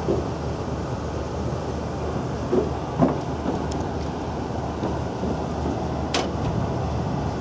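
Steady low drone of a paddle-wheel cruise boat under way, mixed with wind noise on the microphone. A couple of soft thumps come around two and a half to three seconds in, and a sharp click about six seconds in.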